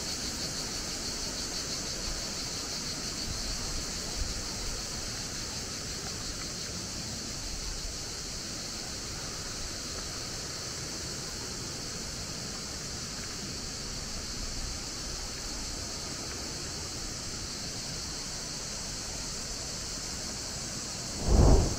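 Steady rush of fast-flowing river water over rapids, with a steady high-pitched hiss over it. A brief low thump near the end.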